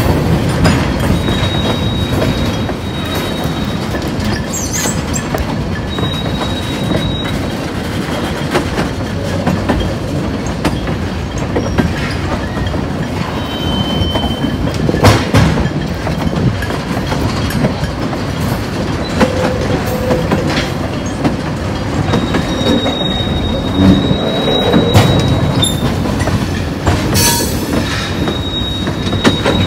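Freight train tank cars rolling past, wheels clacking and knocking over rail joints and switches, with a thin high-pitched wheel squeal that comes and goes several times.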